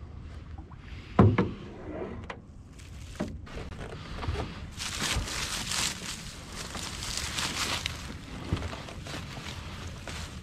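Someone moving about in a jon boat: a loud hollow thump on the boat about a second in, a few lighter knocks, then several seconds of rustling and handling noise.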